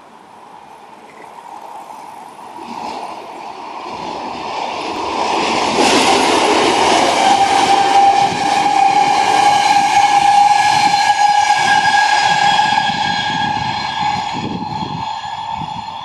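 VR electric commuter train passing at speed. Its rumble builds, peaks in the middle and fades, with wheels clattering over the rails. A steady whine comes in about halfway.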